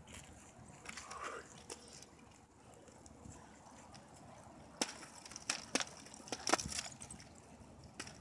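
Chain-linked nunchaku being swung and caught, giving a run of sharp clacks and chain rattles, several in quick succession from about five seconds in.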